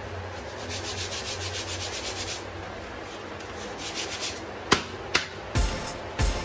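Dry rubbing and brushing strokes on a cooked chapati roti, a quick run of strokes in the first couple of seconds, followed by two sharp clicks and a few knocks of the rotis and board being handled near the end.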